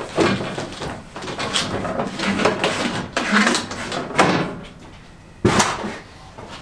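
Wiring and parts being handled and pulled on a car, a run of irregular rustles, clatters and knocks, with a sharp knock about five and a half seconds in.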